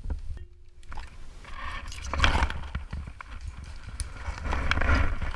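Dry grass and fallen leaves rustling and crackling against a body-mounted action camera as a player shifts position lying in the undergrowth, with low rumbling handling noise on the microphone. There are two louder spells of rustling, about two seconds in and again around five seconds, after a brief dropout just after the start.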